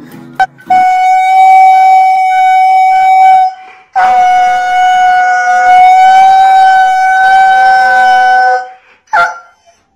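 A husky-type dog howling: one long steady howl of about three seconds, then a longer one of about five seconds at the same pitch, then a short call near the end. A few guitar strums sound at the very start.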